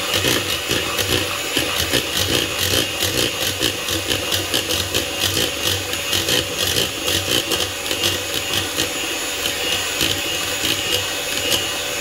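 Electric hand mixer running steadily, its twin wire beaters whipping eggs and sugar in a plastic bowl: a constant motor whine with a fast rattle of clicks.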